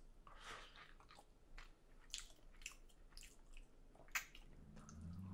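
Faint close-up mouth sounds of biting and chewing a small custard egg tart: soft wet smacks and clicks, the sharpest about four seconds in, with a short low hum near the end.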